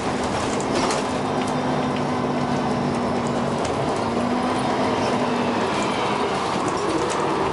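Dennis Arrow double-deck bus running, heard on board: a steady engine and drivetrain drone with a held whine from the ZF automatic gearbox that fades briefly about halfway and falls in pitch near the end, with light rattles from the body.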